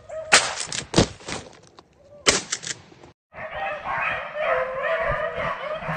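A pack of beagles baying together, several wavering voices overlapping, starting just after halfway. Before that come a few loud bursts of rustling noise.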